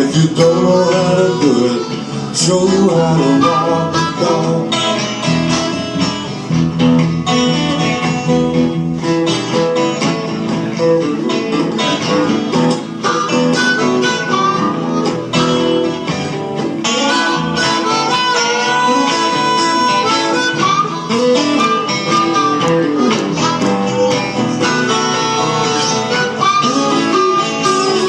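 Small blues band playing live, recorded on a cell phone so it sounds tinny: harmonica lines, with held and bent notes, over guitars and bass guitar.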